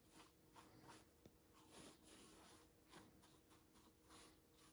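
Faint, quick scraping strokes of a trowel spreading and smoothing wet cement render on a stone wall, irregular, about three a second.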